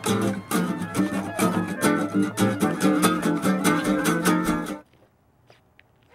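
Background music with a steady beat that cuts off suddenly near the end, leaving only a few faint ticks.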